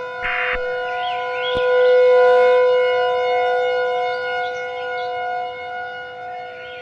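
The last of three short screeching end-of-message data bursts from an Emergency Alert System broadcast, just after the start, over a steady, eerie chord of several held electronic tones. The chord swells about two seconds in and goes on with faint wavering higher sounds.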